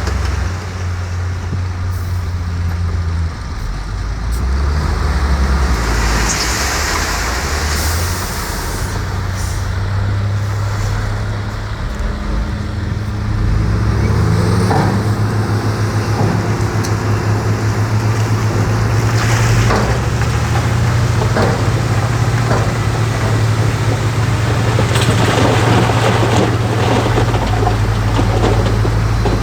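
Heavy diesel engine of earthmoving machinery running under load, its pitch stepping up and down several times, with occasional short clatters and hisses.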